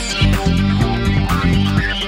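Instrumental background music with guitar and bass over a steady beat.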